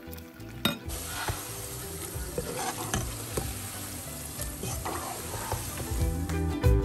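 Potato chips deep-frying in hot oil: a steady sizzle from about a second in, with a utensil stirring through the chips. Background music comes back in near the end.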